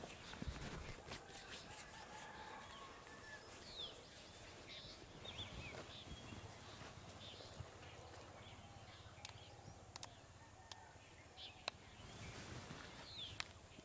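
Birds chirping, short falling chirps scattered throughout, with a few sharp clicks in the second half.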